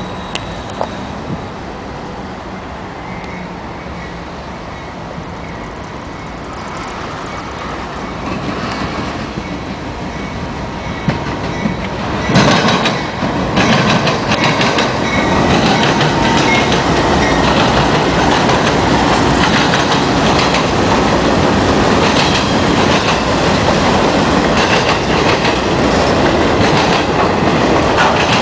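Four BNSF GE Dash-9 diesel locomotives approach and get steadily louder, passing close about twelve seconds in. A long intermodal train of flatcars carrying semi trailers follows, a loud steady rumble of wheels on rail with regular clicking over the joints.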